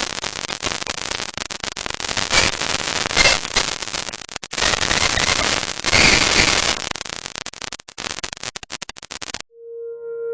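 Digital glitch sound effects: harsh crackling static full of rapid clicks, with brief dropouts and a stuttering, chopped passage toward the end. About nine and a half seconds in it cuts off and a steady electronic hum-tone begins.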